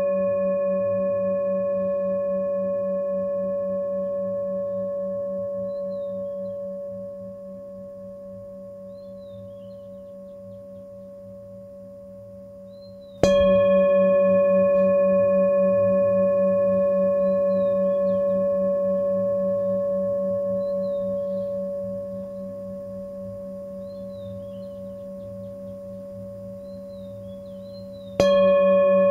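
Singing bowl ringing: already sounding at the start, struck again about halfway through and once more near the end. Each strike rings on as a long, wavering hum that slowly dies away.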